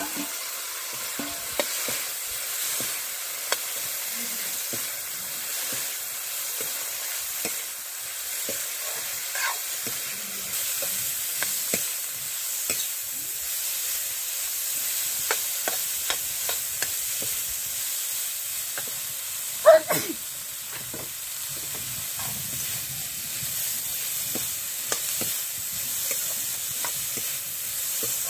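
Fried potatoes and boiled figs being stirred into sizzling spiced masala in a pan, the oil hissing steadily under frequent short scrapes and clicks of the stirring utensil against the pan, with one louder knock about two-thirds of the way through.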